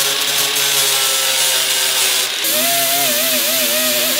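Angle grinder with a flap disc grinding down tack welds on a steel car fender, running at a steady pitch. About two and a half seconds in it switches abruptly to a small flat air sander, whose pitch wobbles up and down as it works the panel.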